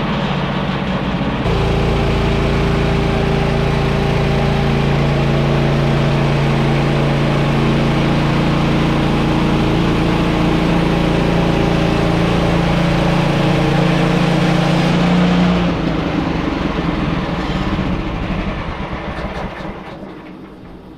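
Woodland Mills bandsaw sawmill's gas engine running steadily as the band blade saws a yellow poplar cant into boards; it picks up about a second and a half in, holds steady, then drops away after about fifteen seconds and dies down near the end.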